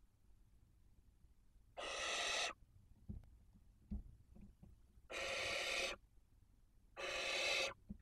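Barn owls giving three harsh rasping hiss-screeches, each lasting under a second, spaced a couple of seconds apart. A couple of soft knocks come between the first and second.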